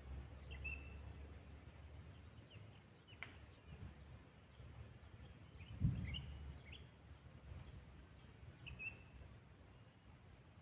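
Faint, scattered short chirps of a sooty-headed bulbul (kutilang) over low background rumble, with a single low thump about six seconds in.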